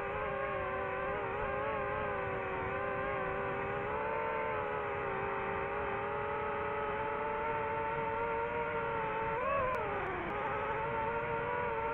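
Small multirotor drone's motors and propellers humming steadily, several close pitches together, with a brief rise and drop in pitch near the end.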